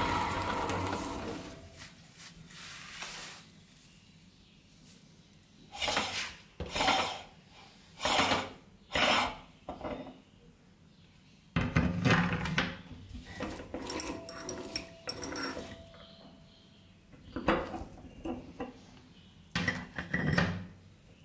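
Cast-iron hand-cranked meat grinder being taken apart: after the last of the cranking dies away, the metal retaining ring, perforated plate and cutter blade clink and scrape against the body in short bursts as they are unscrewed and pulled off.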